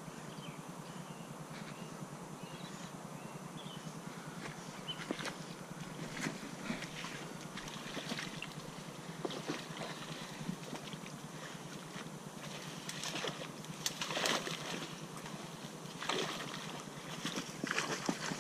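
Dry reed stems rustling and snapping as something pushes through a reed bed, in scattered crackles that come thicker in the last few seconds, over a steady hiss.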